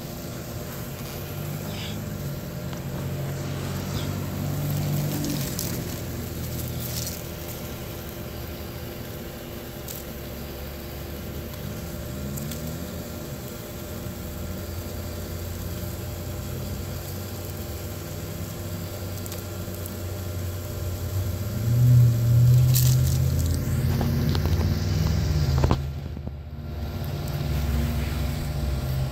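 A small open fire burning a pair of running shoes, with a few faint crackles, under a steady low rumble that swells about three-quarters of the way through.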